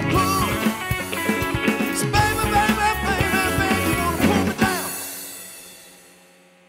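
Rock band with bass guitar and drum kit playing the end of a song. A final hit comes about four and a half seconds in, then the last chord rings and fades away.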